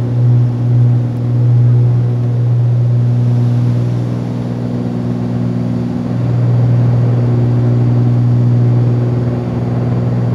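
Twin piston engines and propellers of a Cessna 310Q droning steadily inside the cabin during the climb after takeoff. The level swells and dips slowly.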